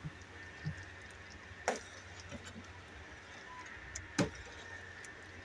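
Metal spoon stirring thick champorado in a stainless steel pan, with a few light clinks of the spoon against the pan, the clearest a little under two seconds in and another about four seconds in, over a faint steady hum.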